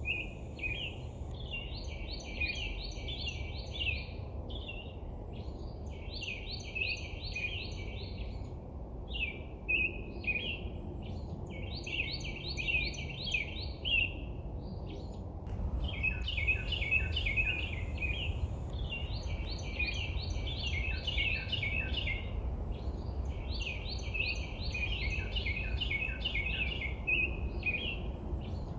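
A songbird singing phrases of rapid chirping notes, each a second or two long and repeated every few seconds, over a steady low background rumble.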